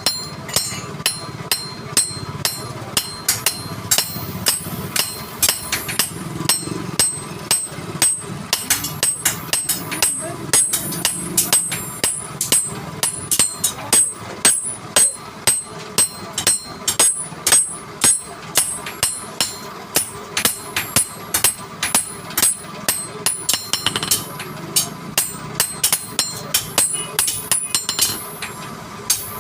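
Hammer striking metal in a fast, steady series of blows, several a second, each with a short metallic ring.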